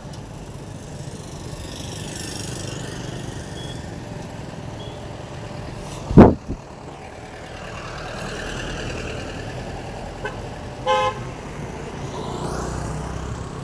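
Roadside traffic noise, with one short vehicle horn toot about eleven seconds in. A loud, brief thump about six seconds in is the loudest sound.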